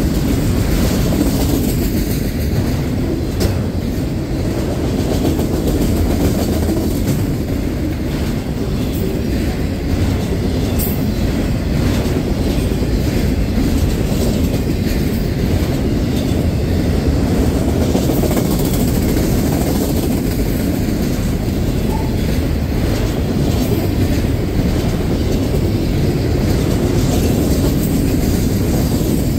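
Autorack freight cars rolling past close by: a steady low rumble with repeated clacks from the wheels.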